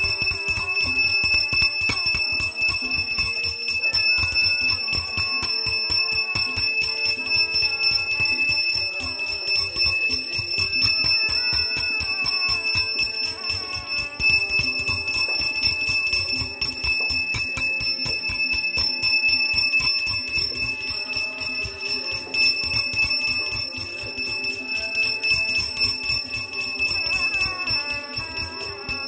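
Brass puja hand bell (ghanti) rung continuously and rapidly, its clapper striking many times a second over a steady high ring, as it is rung during the aarti.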